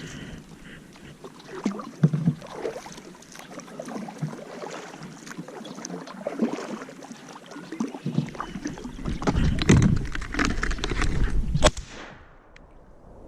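A kayak moving through a cattail marsh: irregular knocks from the paddle and hull, with reeds rustling and scraping against the boat, busier and louder in the second half.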